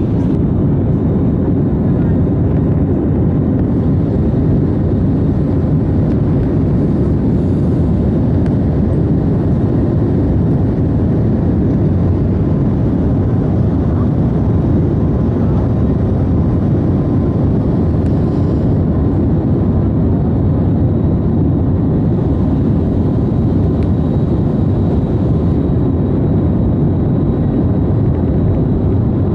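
Steady cabin noise of a jet airliner in cruise, engines and airflow heard from inside the passenger cabin as an even, low rushing sound.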